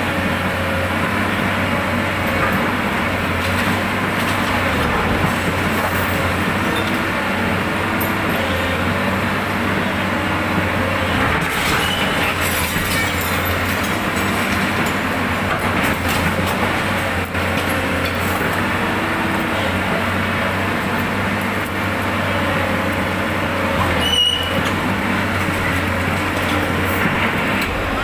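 SANY hydraulic excavator's diesel engine running steadily under load while its bucket tears into a building's masonry, with a few sharp knocks of breaking concrete.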